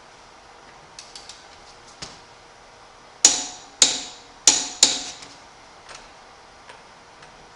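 A few light metallic clicks, then four sharp metal clanks with a short ring, spaced under a second apart, from steel tools or jack parts being knocked or set down.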